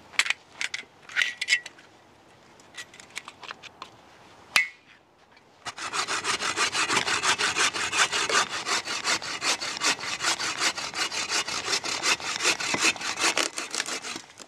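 Bow saw cutting through a branch, quick steady back-and-forth strokes rasping through the wood, starting about six seconds in and stopping near the end. Before it, footsteps and rustling in leaf litter with one sharp crack.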